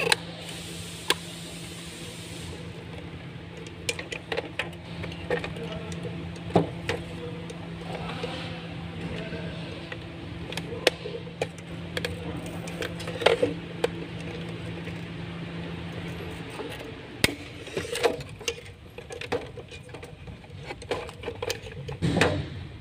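Scattered plastic clicks and knocks as the parts of a car fuel pump module (plastic housing, fuel filter body, rods and wiring) are handled and pressed together, over a steady low hum that stops about two-thirds of the way through.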